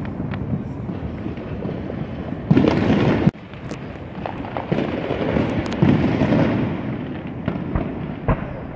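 Fireworks display: aerial shells booming and crackling over a steady rumble. About two and a half seconds in comes a loud stretch of bursts that cuts off suddenly, followed by scattered sharp pops and crackles.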